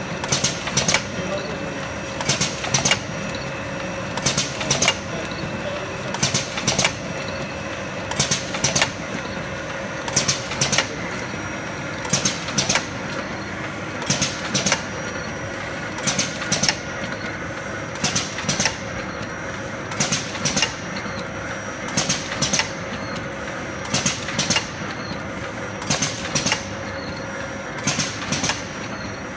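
A cappuccino and chocolate powder filling-and-packing machine running. A steady hum with a held tone is broken by a cluster of two or three sharp mechanical clacks about every two seconds as the machine cycles.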